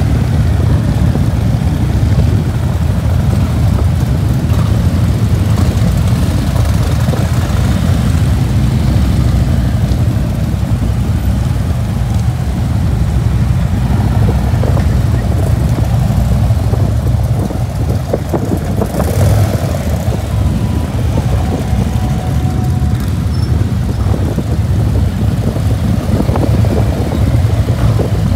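A procession of heavy touring motorcycles and baggers rides past one after another, their engines a steady deep rumble that continues without a break.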